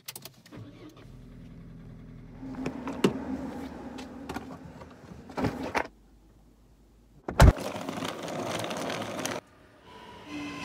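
Knocks and handling noises at an open car boot, then a loud thump about seven seconds in as the boot lid is shut. Near the end comes the rising noise of a train approaching.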